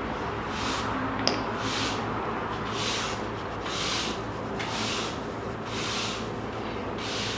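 Rhythmic scrubbing strokes, about one a second, over a steady low hum, with one sharp click just over a second in.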